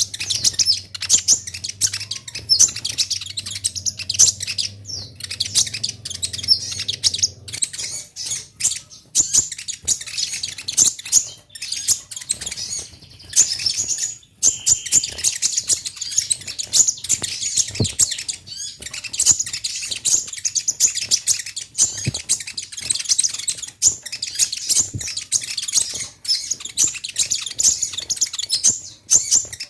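Kolibri ninja (konin) sunbird singing a rapid, high-pitched twittering chatter almost without pause, the lively song used as a lure to make other konin answer.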